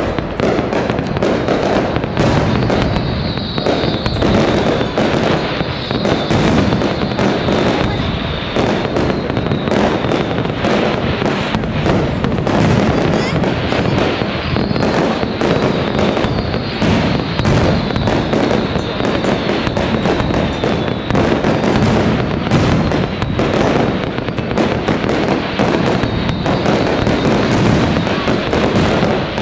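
Aerial fireworks display: shells bursting one after another, a dense, continuous run of overlapping bangs and crackling with no pause.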